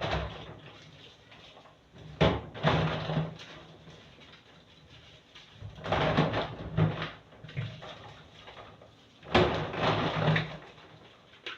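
Household handling noises in a kitchen during cleaning: three short bursts of rubbing and knocking, about four seconds apart.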